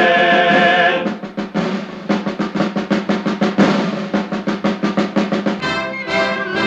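Film score music: a choir's held final chord ends about a second in, then military-style snare drumming carries on for several seconds, and brass comes in near the end.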